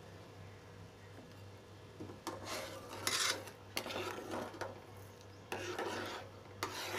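Steel spoon stirring and scraping against the bottom of a pan of hot, thickening milk in irregular strokes that begin about two seconds in, mixing in freshly added sugar. A faint steady hum runs underneath.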